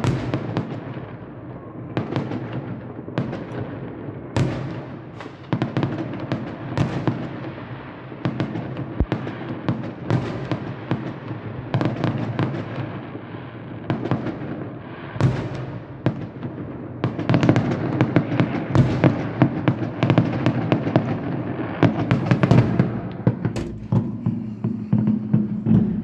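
Fireworks going off in rapid succession: sharp bangs and crackling pops, thickening into a near-continuous barrage after about two-thirds of the way through.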